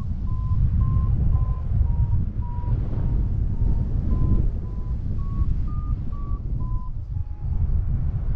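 Paraglider variometer beeping: short beeps about two a second, their pitch wandering gently around one note, rising a little past halfway and dropping just before they stop near the end. The beeps signal that the glider is climbing. Under them runs a steady low rush of wind on the microphone.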